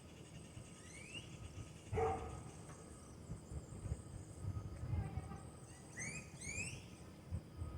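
Wild birds calling: a rising whistled note about a second in, a short harsh call a second later, and two quick rising whistles near the end, over an uneven low rumble.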